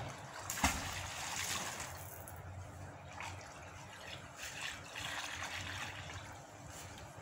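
River water trickling and running steadily, with one sharp splash about half a second in as an object thrown from the bridge hits the water.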